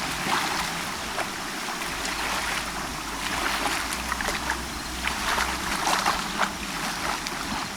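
Bay water lapping at the shore, with many small irregular splashes over a steady wash.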